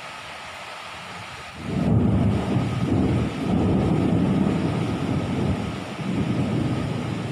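Thunder: over a steady hiss, a loud low rumble breaks about a second and a half in and rolls on, easing off near the end.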